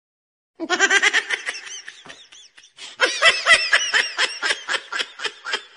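A person laughing hard and high-pitched in two runs of quick 'ha' pulses, starting about half a second in, with the second run longer.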